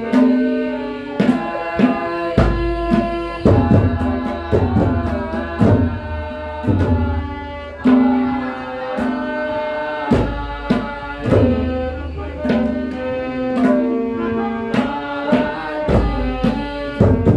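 Tabla playing a rhythm with deep bass strokes, accompanying a melodic instrument that plays a tune in held notes.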